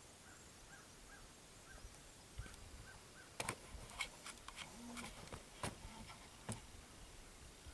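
Faint camera handling: a cluster of sharp clicks and knocks through the middle, with a brief low hum among them as the view zooms out. Before that, a few faint, evenly repeated short chirps.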